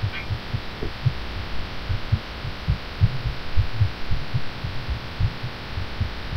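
A woman's fast heartbeat recorded close up: a steady run of low thumps over a constant hum. She is sick and has taken cough medicine.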